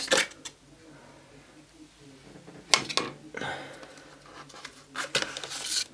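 A cardboard phone box and its moulded inner tray being handled as fingers pry at the tray to lift it out: a few sharp clicks and knocks, then rustling and scraping of packaging near the end.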